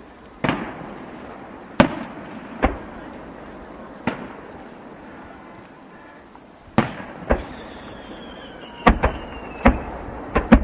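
Aerial fireworks shells bursting: about ten sharp bangs at irregular intervals, each with a short echo, coming thicker in the last two seconds. A faint whistle falls slowly in pitch through the second half.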